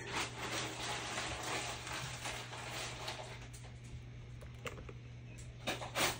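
Faint scraping and handling noises over a low steady hum, ending with a few sharp clicks as a plastic bottle of acrylic paint is picked up and handled.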